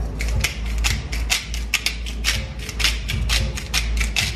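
Hand-twisted seasoning grinder being worked over a bowl of diced raw beef: a rapid run of crunching clicks, about five a second, as salt or peppercorns are ground.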